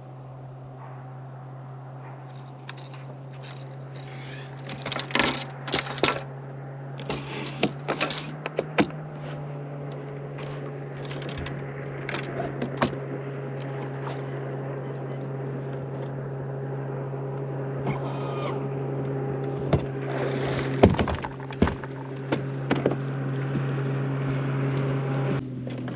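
A steady low motor hum that slowly grows louder, with scattered knocks and clunks of fishing gear and rods being handled on a boat's deck, the loudest about five to six seconds in and again about twenty-one seconds in.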